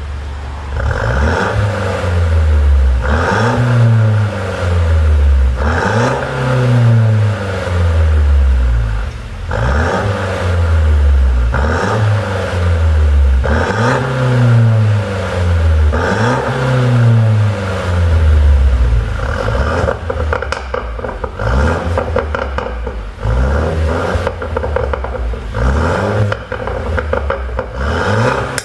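Mercedes-Benz C200 coupe's four-cylinder engine revved in repeated blips, the revs rising and falling about every two seconds. From about two-thirds through there is rapid popping and crackling from the exhaust on the overrun, the effect of an ECU 'pop' tune.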